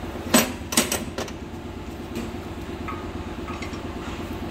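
Screwdriver levering and knocking at the rubber bushing of an Opel Insignia B rear suspension carrier: a few sharp metallic clicks in the first second and one more near the end, over a steady low hum. The bushing does not move; it is seized.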